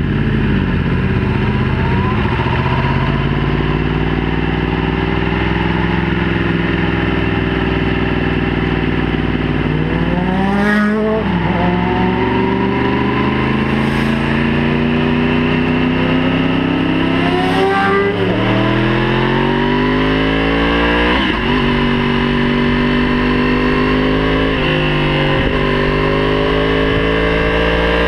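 Yamaha YZF-R1 inline-four sport bike accelerating hard through the gears. The engine note climbs and drops sharply at each upshift, about four times.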